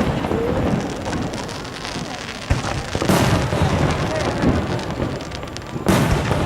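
Fireworks display: loud booms of aerial shells about three seconds in and again near the end, over a continuous dense crackling much like heavy rain.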